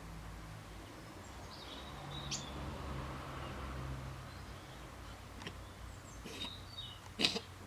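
A few faint bird chirps over a low steady hum, then near the end one short, sharp sneeze from a fox.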